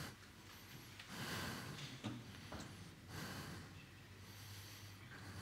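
Faint breaths close to a microphone, a few soft swells of air about a second apart, over a low steady hum of room tone.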